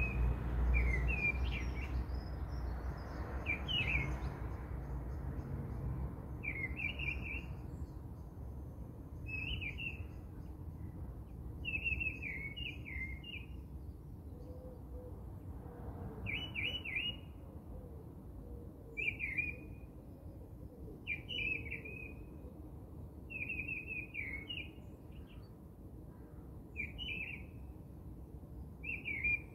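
A songbird singing short chirping phrases, repeated about every two seconds, over a low rumble that is strongest in the first few seconds.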